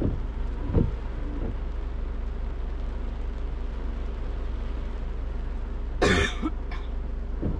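Steady low hum of a car driving, with a few soft low thumps about a second in and a short, sharp burst of noise about six seconds in.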